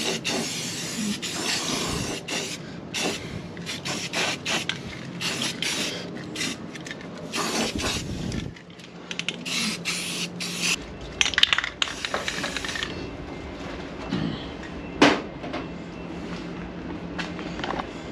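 Aerosol spray paint can hissing in short, repeated bursts as paint goes onto a freshly welded and ground car frame rail; the bursts grow thinner in the later part as the can runs low on paint. A steady low hum sits underneath for the first ten seconds or so.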